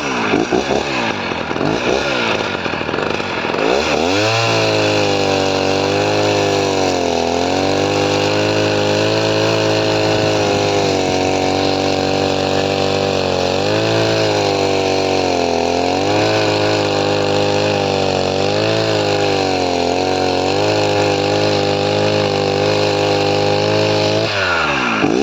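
Early-1970s Husqvarna 260CD two-stroke chainsaw on its first test run after repair. It is revved in quick blips for the first few seconds, then held at high revs for about twenty seconds with a few brief dips, then blipped again near the end.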